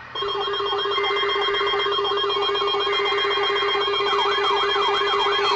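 Emergency alert broadcast signals: short buzzy data bursts of the alert header, each about a second long and repeating every two seconds. Over them runs a steady alert tone with a warbling, siren-like sweep that rises and falls two to three times a second.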